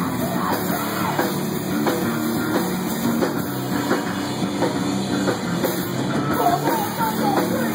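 Rock band playing, with a drum kit and guitar.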